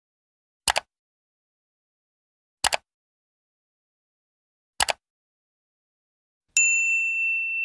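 Three quick double clicks about two seconds apart, tap sound effects for the Like and Subscribe buttons, then a clear high bell ding near the end that rings on.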